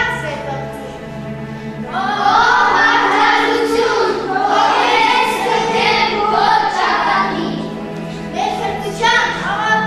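Music: a choir singing a slow melody with accompaniment, softer at first and swelling fuller about two seconds in.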